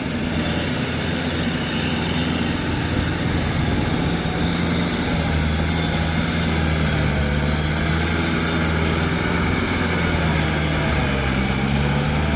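Kubota tractor's diesel engine running steadily under load while plowing a rice paddy, its pitch dipping briefly about ten seconds in before recovering.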